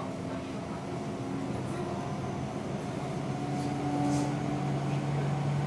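Seibu 6000 series electric train running, heard inside a motor car. Steady rolling noise carries several steady motor and inverter tones, and a low hum grows a little louder from about halfway.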